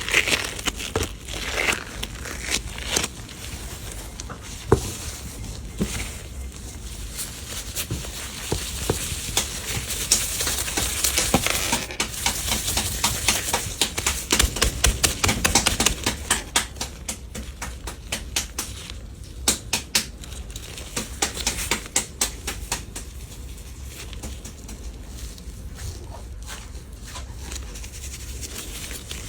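Paper being handled and folded: crinkling rustles with many irregular small taps and clicks, busiest through the middle.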